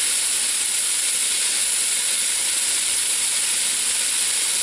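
Chopped beef (ground beef) sizzling in a hot pan as it starts to brown, a steady even hiss.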